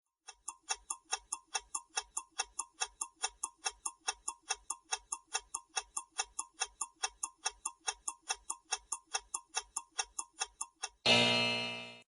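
Quiz countdown-timer sound effect: rapid, even clock ticking for about ten seconds. Near the end a loud ringing time-up tone starts suddenly and fades.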